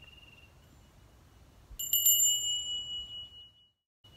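A small meditation bell struck once, ringing with a clear high tone that fades over about a second and a half before cutting off suddenly. A bird chirps briefly at the start.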